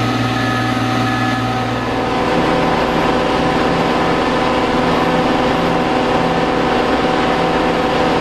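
Engine of a 400-ton Marine Travelift boat lift running steadily with the boat held in its slings; the engine note changes about two seconds in, picking up a low throb.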